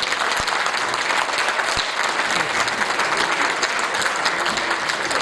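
Concert hall audience applauding, a steady dense clapping.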